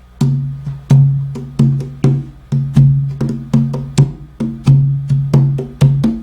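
Conga drum played by hand in a steady repeating rhythm, about three to four strikes a second. Most strikes are open tones that ring briefly, mixed with a few shorter, sharper hits.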